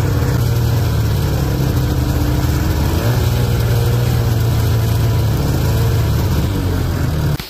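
Ski-Doo Safari snowmobile's two-stroke engine running steadily as the sled travels along a snowy trail, heard from the rider's position with the track and engine noise loud and even. The sound cuts off suddenly just before the end.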